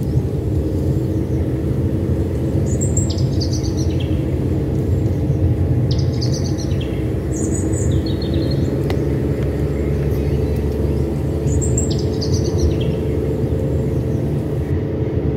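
Bird-like chirps, each a short figure stepping down in pitch, repeating about every three to four seconds over a steady low hum.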